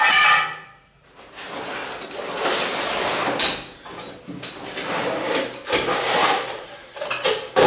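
An Oztent RS-1 camp stretcher being unfolded by hand. There is a long rustle of its fabric bed, then shuffling and knocks from the metal frame, with a few sharp clicks near the end.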